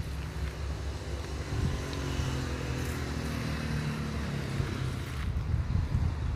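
A motor vehicle passing on a nearby road: its engine hum slowly falls in pitch as it goes by, together with a hiss that ends abruptly about five seconds in. Under it runs a steady low rumble.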